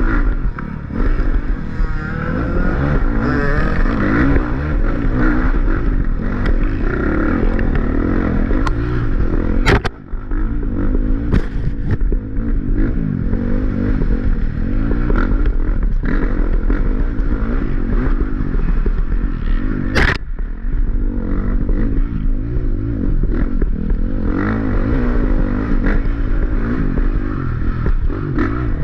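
Off-road dirt bike engine revving up and down continuously under hard riding. A sharp knock comes about ten seconds in, followed by a brief dip in the engine sound, and another about twenty seconds in.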